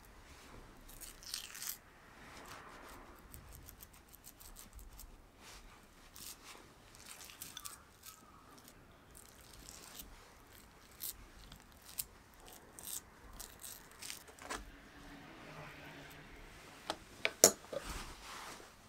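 A spoon scooping thick almond cream and dropping and spreading it in a tart shell: soft wet scrapes and squishes with light clicks of the spoon, and a few sharp clicks near the end.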